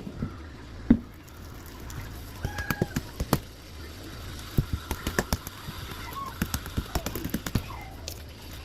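Irregular sharp clicks and small wet pops, scattered through the whole stretch, with faint voices in the background.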